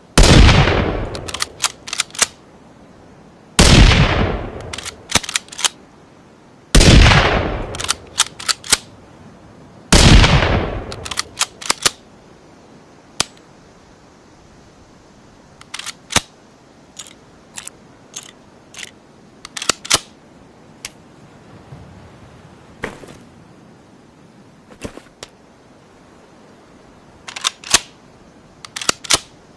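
Four rifle shots from a Ruger American bolt-action rifle sound effect, blended with a Ruger American Rimfire, about three seconds apart. Each shot dies away over about a second and is followed by a quick run of sharp clicks. After the fourth shot come only scattered clicks, with a short cluster near the end.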